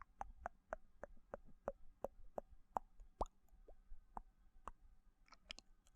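Close-miked wet mouth sounds: a steady run of mouth clicks and pops, about four a second, with a quicker cluster of smaller clicks near the end.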